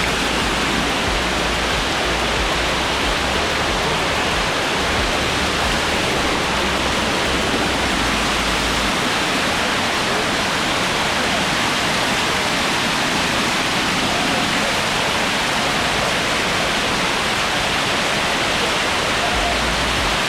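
Water rushing steadily down the cascades of Dunn's River Falls, a continuous loud, even roar of falling water heard from close by.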